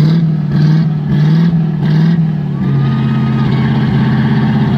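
Off-road 4x4's engine working under load. For the first two and a half seconds the revs surge and drop in quick pulses, about every 0.6 s. After that the engine holds a steady note.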